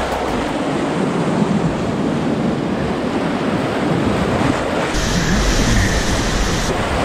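Whitewater rapids rushing around a canoe, with wind buffeting the action camera's microphone. The sound gets heavier in the low end about five seconds in as the view switches to the bow camera.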